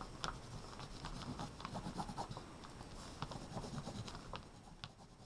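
Oil pastel scratching across paper in quick, short back-and-forth strokes, several a second, drawing scratchy lines. Faint, and thinning out near the end.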